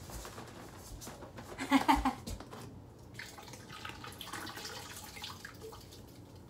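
Liquid fabric softener poured from a plastic bottle into a washing machine, with a few loud knocks of the plastic bottle and cap being handled about two seconds in.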